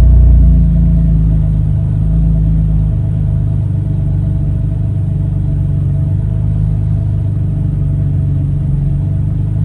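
BMW F80 M3's S55 twin-turbo inline-six idling. The level eases down over the first couple of seconds, then holds steady.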